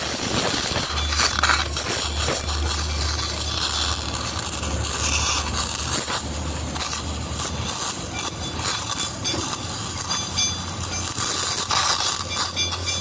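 Gas cutting torch hissing and crackling as its flame cuts through the steel baffle inside a motorcycle muffler, with scattered small metallic clinks over a steady low drone.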